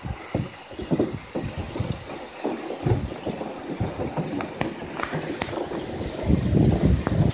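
Choppy lake water full of broken-up spring ice sloshing against a kayak, with light clinks of small ice pieces here and there and a louder low rush near the end.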